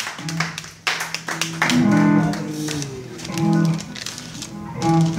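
Electric guitar notes picked one at a time and left to ring, loose noodling rather than a full band playing, with a few clicks in the first second.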